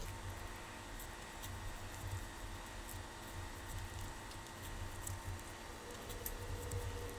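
Faint, irregular small clicks and taps of knitting needles and cotton yarn being handled while stitches are cast on with the cable cast-on, over a low steady hum.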